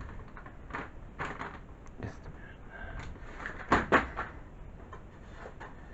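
Handling of a cardboard toy box and its packaging: scattered light rustles and taps, with two louder knocks close together about four seconds in.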